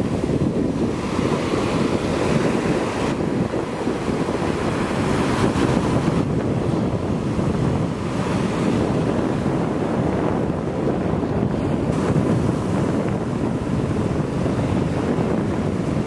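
Ocean surf breaking and washing through shallow water in a steady noise, with wind buffeting the microphone.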